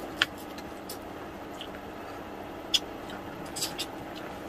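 Quiet eating sounds from a meal of salmon-head sinigang: a few short, sharp clicks and smacks, the loudest about a quarter second in and near three seconds in, over a steady low hum.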